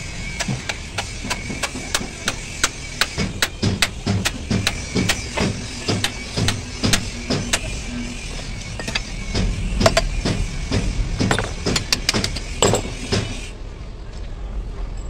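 Irregular metal knocks and taps, several a second, from hammering and handling the steel bell-crank assembly of a truck's rear suspension during a washer change; they die away a little before the end.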